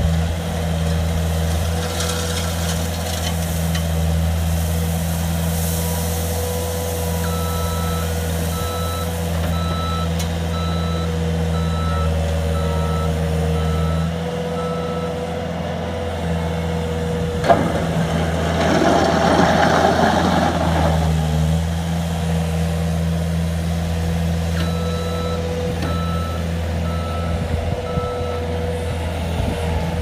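Bobcat S220 skid steer's diesel engine running steadily, with its reversing alarm beeping about once a second in two spells. Near the middle comes a sharp knock followed by a few seconds of rushing noise.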